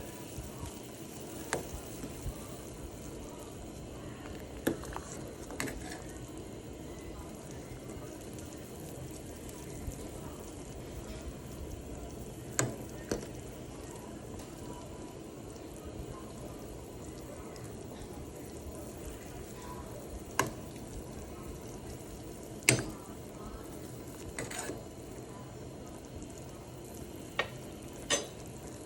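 Chicken cooking in a pot on the stove with a steady sizzling hiss, while a utensil stirs it and clinks sharply against the pot about ten times.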